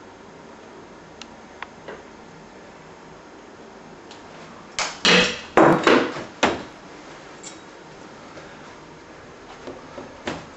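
A few light clicks, then a quick run of about five loud knocks and clatters over a second and a half, then a few more light clicks near the end: handling knocks from work at a window frame.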